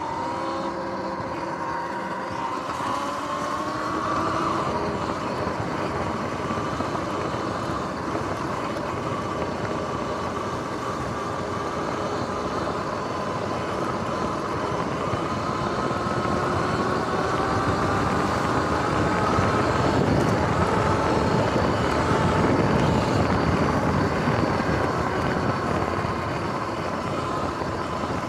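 Sur-Ron X electric dirt bike under way: a motor-and-drive whine whose pitch rises and falls with speed, over wind and tyre noise. The whine climbs a few seconds in and again about midway, and the wind and tyre noise swell loudest in the last third.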